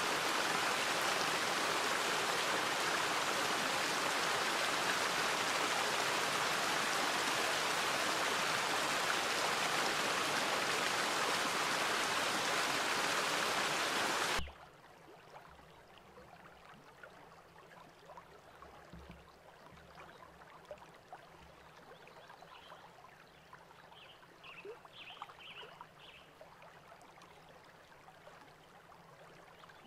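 Small waterfall spilling over rocks into a pool: a steady rushing splash that cuts off abruptly about halfway through. After it, a much quieter gently flowing stream with a few faint high chirps.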